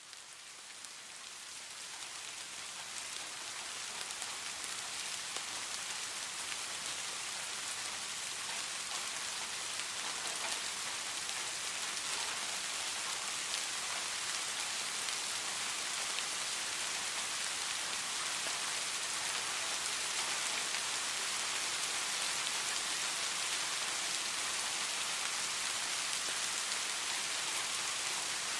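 Steady rain falling, a dense even hiss of many drops, swelling up over the first few seconds and then holding steady.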